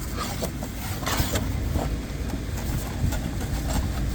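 Cardboard and plastic packaging being handled, with scattered clicks and a short burst of rustling about a second in, over a steady low rumble.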